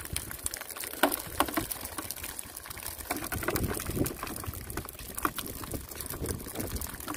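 Freshly caught sardines flapping on wet concrete and a wet cast net being handled as the fish are picked out: a run of small irregular wet slaps and clicks.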